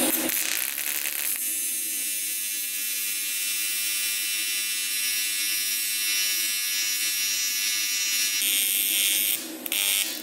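AC TIG welding arc on aluminium, a steady buzz that starts about a second and a half in, then cuts out near the end, briefly flickering back once.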